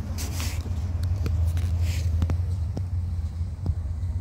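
Steady low rumble of motor traffic from a nearby road, with a few faint ticks and knocks and two brief rustling hisses in the first two seconds.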